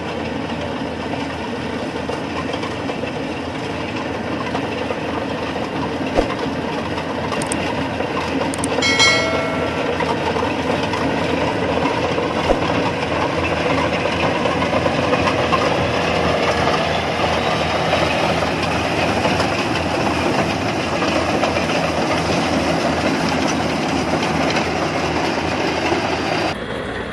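Rice combine harvester running steadily as it cuts standing rice: engine, cutter bar and threshing machinery make a dense, rhythmic clatter. A short pitched tone stands out about nine seconds in.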